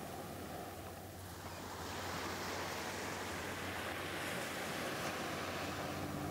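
Shallow surf washing up and back over sand at the water's edge: a steady rushing wash that swells a little about two seconds in.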